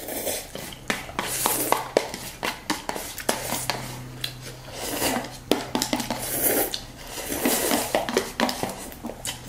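Fast eating of spicy instant cup noodles: repeated slurps of noodles, with chopsticks clicking and scraping against the paper cups and the cups being handled, many short clicks spread throughout.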